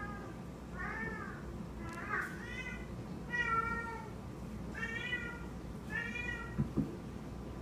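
Domestic cat making a run of about six short, chirping meows, each rising then falling in pitch: the cat's 'talking' while it handles its toy. Two soft thumps follow near the end.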